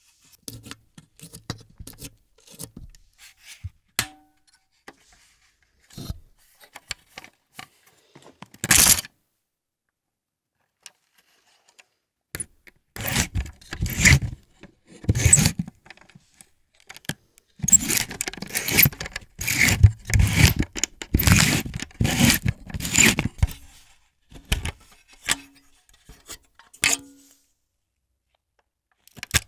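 Agfa Billy Compur folding camera being handled: scattered small clicks, a single loud scrape, then two runs of repeated scraping and rubbing strokes, the longer one in the second half, with a few light clicks near the end.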